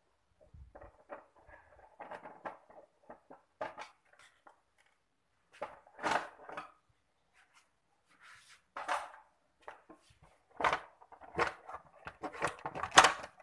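Plastic body panels of a Yamaha Jupiter MX underbone motorcycle clicking, knocking and rattling as they are worked loose and pulled off the frame. The clicks come irregularly and grow louder and closer together near the end.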